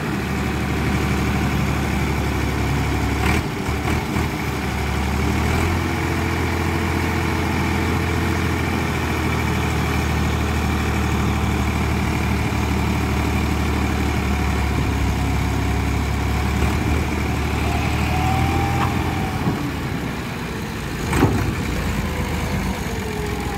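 Massey Ferguson 260's three-cylinder diesel engine running steadily while it drives the hydraulics that tip a fully loaded trolley. A single sharp knock comes near the end.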